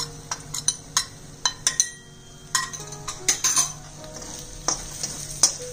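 Steel spatula scraping and clinking against a metal kadhai as ground spices are stirred into frying onions, with a light sizzle underneath and a few sharp clinks scattered through. Soft background music with held notes plays along.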